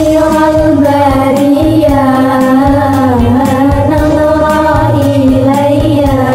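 A young woman singing an Indonesian devotional syair in long, slightly wavering held notes over instrumental backing with a low bass line.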